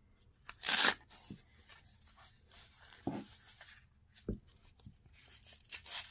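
Hook-and-loop strap of a wrist blood-pressure monitor's cuff ripped open once, loudly, about half a second in. Rustling of the cuff and two soft knocks follow as it is handled and put on.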